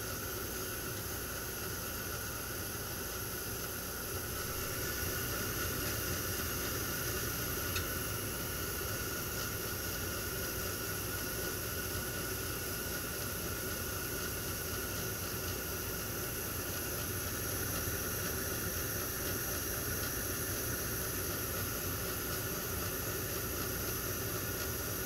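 Gas pack running in heating mode: a steady hiss from the burners and inducer fan, with a few faint steady tones over it.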